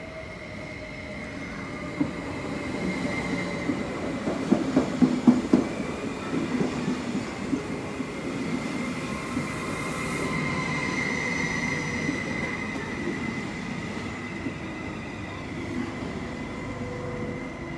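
SOB Traverso, a Stadler FLIRT electric multiple unit, arriving along the platform and rolling past, with a steady high-pitched whine over the running noise. A run of clattering knocks from the wheels comes about four to seven seconds in.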